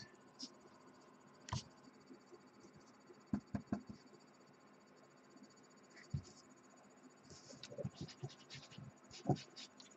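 Faint, scattered taps and light scratching from hands handling a strip of tape holding small plastic model parts on a cutting mat, with a slightly louder tap near the end.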